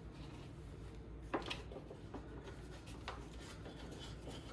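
Faint handling noise: a few soft knocks and rustles, one about a second and a half in and another about three seconds in, over a low steady hum.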